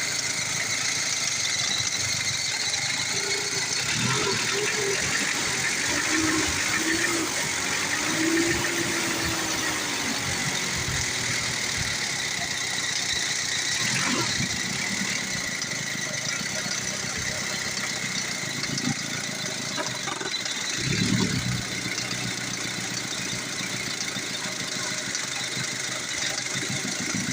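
Old Ford diesel engine running steadily at idle with a rapid, even clatter, now starting and running after the injector was refitted and the injection pump timing was reset.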